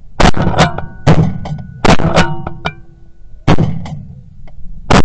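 Music made of about five loud struck hits, each leaving a chord of ringing notes that fades before the next one.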